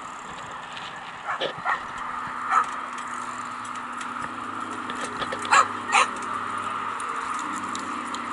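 A small dog barking several short times, the two loudest barks close together about two-thirds of the way through.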